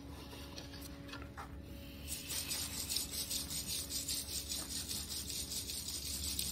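Wire-mesh sieve being shaken to sift red-brown moulding sand over a mask pattern in a wooden casting flask, starting about two seconds in: a rhythmic rasping hiss of sand grains scraping through the mesh and pattering down. This is the riddling of sand to form a sand-casting mould.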